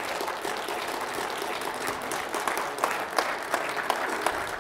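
Audience applauding, with the clapping thinning out into more separate claps toward the end.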